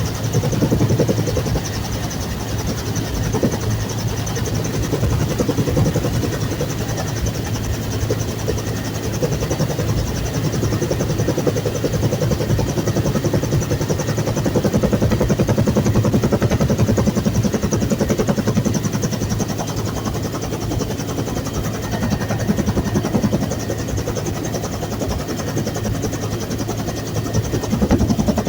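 Bell UH-1 Huey helicopter running: a steady, loud low drone of rotor and turbine with a fast, even pulsing beat.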